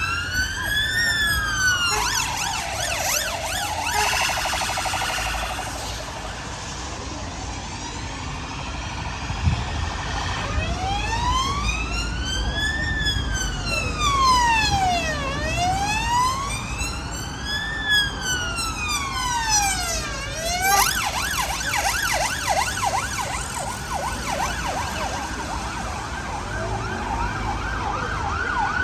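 UK emergency vehicle sirens: a slow rising and falling wail that switches to a rapid yelp about two seconds in, returns to the slow wail for several cycles, then switches back to the rapid yelp about two-thirds of the way through, over a low rumble of passing traffic.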